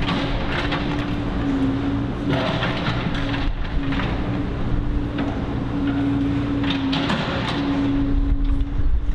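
A car moving slowly along a city street: a steady rumble of engine and road noise with a constant hum.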